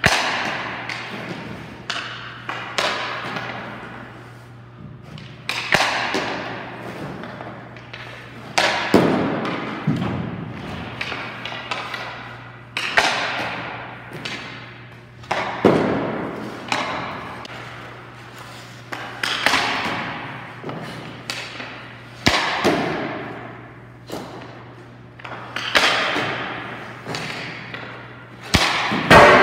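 Hockey pucks shot at a goalie in warm-up: a sharp crack every two to three seconds, each ringing on in the big rink, over a steady low hum.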